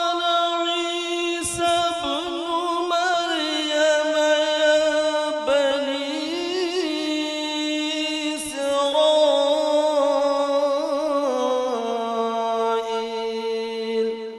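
Male qari reciting the Quran in melodic tajweed style: one long ornamented phrase sung on a single breath, with held notes that step between pitches. It ends near the end with a short trailing echo.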